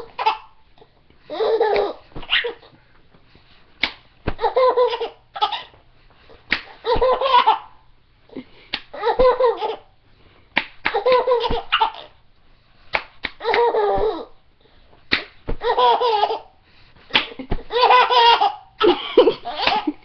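Young children's belly laughter coming in repeated bursts about every two seconds, most bursts set off by a sharp smack of a hand hitting a person.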